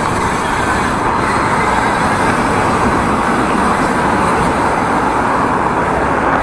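Steady rushing wind and road noise from riding a BMX bicycle, with road traffic underneath.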